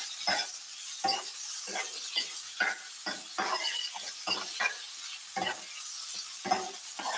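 Metal spoon stirring and scraping sliced bell peppers and onions around a stainless steel skillet, in irregular strokes about once or twice a second, over the steady sizzle of the vegetables frying in oil.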